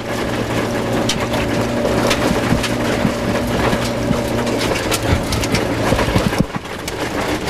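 Rover 214 rally car's engine pulling steadily under load, heard from inside the cabin, with gravel and stones crackling and pinging against the underside and wheel arches. The engine eases off briefly about six and a half seconds in, then picks up again.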